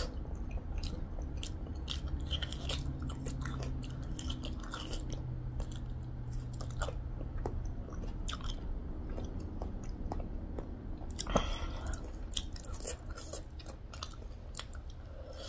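A person chewing pieces of pork leg achar by hand, with many short wet mouth clicks and smacks scattered irregularly, and one louder mouth noise about eleven seconds in.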